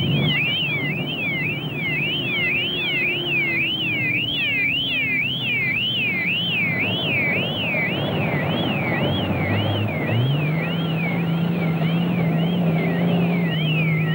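Vehicle warning siren rising and falling about twice a second, sounded from a utility truck clearing the mine before a blast. The truck's engine runs underneath, its note climbing about ten seconds in and then holding steady.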